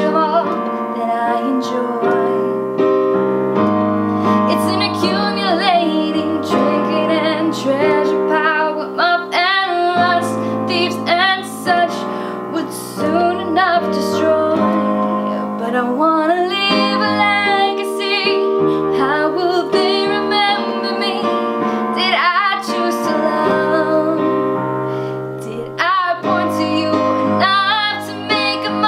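A woman singing while accompanying herself on a Yamaha digital piano, her voice carrying the melody over sustained piano chords.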